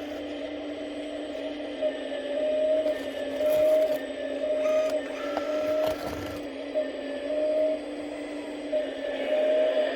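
The hydraulic pump of a 1/14-scale RC hydraulic excavator whining steadily, swelling louder every second or so as the hydraulics take load, with a few light knocks from the machine working.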